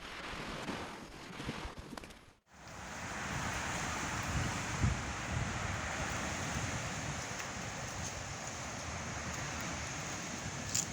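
Steady rushing noise of wind and water, starting just after a brief cut about two and a half seconds in. Before the cut there is a rougher noise with a few knocks.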